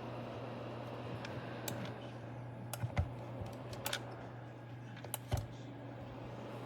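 A small ceramic space heater's fan running with a steady low hum and an even whir. A few light, sharp clicks and taps come a second or so apart, about three seconds in, near four seconds and past five seconds.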